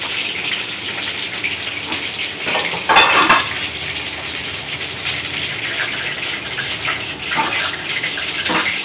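Steel utensils and vessels clattering as they are handled, loudest in one sharp clatter about three seconds in, with a few lighter knocks later. Underneath runs a steady hiss of brinjal frying in oil over a high flame.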